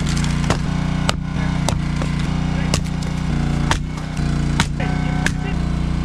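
Champion 27-ton gas log splitter's engine running steadily, its note shifting now and then, with sharp knocks of an axe striking firewood rounds about once a second.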